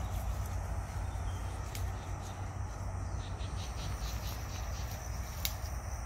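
Insects trilling steadily in the bush, with a run of quick, evenly spaced pulses in the middle, over a steady low rumble; a single sharp click near the end.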